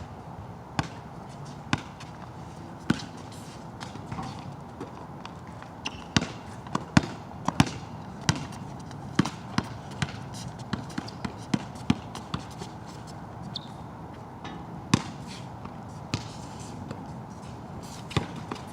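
Basketball bouncing on a wet court, the sharp bounces coming irregularly and thickest in the middle, over a steady hiss of rain.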